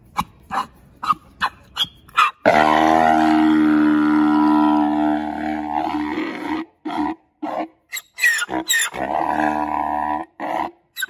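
Grevy's zebra braying: a run of short, sharp sounds about two or three a second, then a loud call held at a steady pitch for about four seconds, more short sounds, and a second, shorter call near the end.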